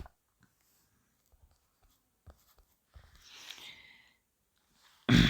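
Handling noise in a small room: a sharp click at the start, a few faint ticks, a short scratchy rustle about three and a half seconds in, and a louder brief sound just before the end.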